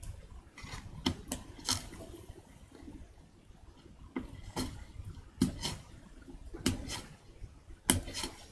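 Hand carving knife cutting into a wooden printing block: about a dozen short, crisp cuts, irregularly spaced, the sharpest one near the end.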